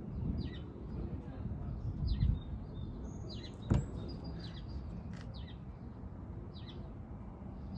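Small birds chirping, short quick calls repeated every second or two over a low outdoor rumble, with one sharp click a little under four seconds in.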